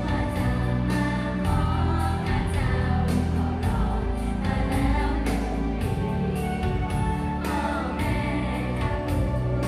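Girl idol group singing together into handheld microphones over amplified pop backing music with a steady drum beat and heavy bass.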